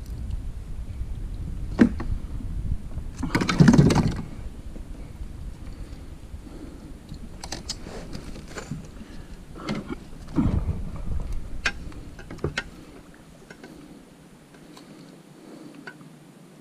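Handling noise of a landing net and gear in a fishing kayak as a snook is worked free of a lure: scattered clicks and knocks, with two louder scuffles about three and a half and ten and a half seconds in. A low rumble underneath drops away about twelve seconds in.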